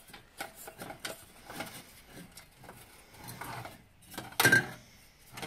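Small metal clicks and rattles as a spring wire clamp and mounting plate are worked into a metal Par 56 light can by hand, with one loud metallic clack about four and a half seconds in.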